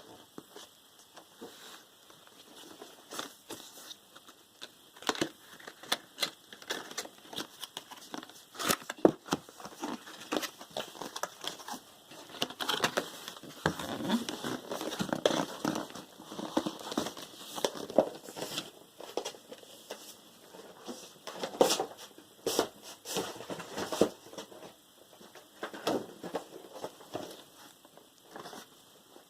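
Packaging being handled and opened: crinkling and rustling, with many scattered sharp clicks and taps, busiest in the middle.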